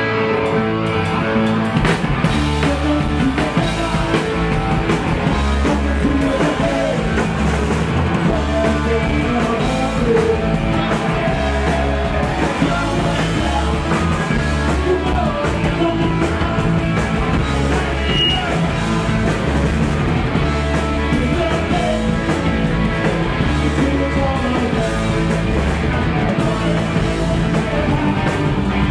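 A punk rock band playing loud and steady, live: electric guitar, bass and drums, with a singer's voice over them.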